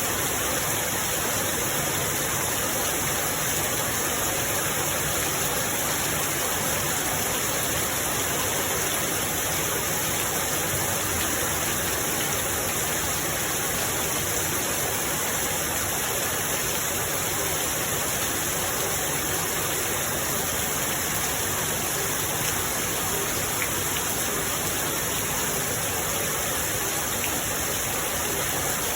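Rain falling steadily, an even unbroken rush with no let-up.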